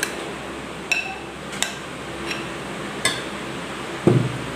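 A metal spoon scraping cake batter out of a glass bowl into a steel cake tin, clinking sharply a few times against the bowl and tin. Two dull thumps come near the end.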